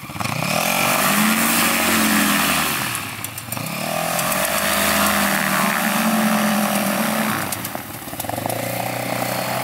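Ultralight aircraft's Yamaha Phazer snowmobile engine turning the propeller through a reduction gearbox, opened up from idle to taxi on grass. The revs ease off briefly about three seconds in and again near the end, then pick up each time.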